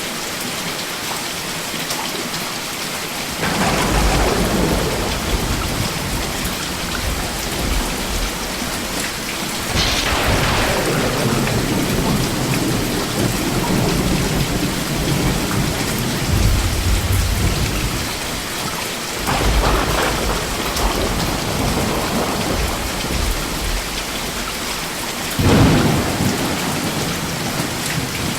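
Steady heavy rain hissing, with thunder rumbling in four times: a few seconds in, about ten seconds in (a sharp crack falling into a long rumble), around nineteen seconds, and near the end.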